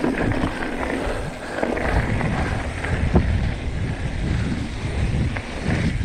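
Wind rushing over the microphone and the tyres of a hardtail mountain bike rolling fast down a dirt trail, with scattered clicks and rattles from the bike.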